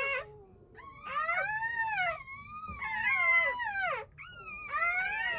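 Newborn Doberman puppies crying: a string of high, drawn-out wails, each about a second long, rising and falling in pitch, some overlapping.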